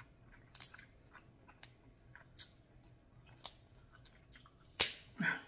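Close-up eating sounds: snow crab shell crackling as the meat is picked and pulled out, with chewing, as scattered small clicks and crackles; the loudest, a sharp crack, comes near the end.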